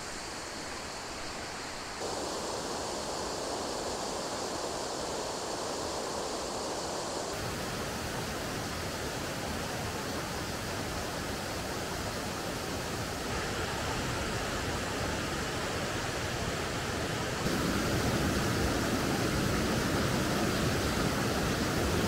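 Rushing water of a cascade, a steady noise that changes abruptly in tone and loudness four times and is loudest in the last few seconds.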